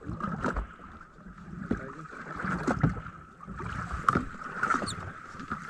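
Water slapping and splashing against the hull of a small fishing boat, with irregular knocks, and wind on the microphone.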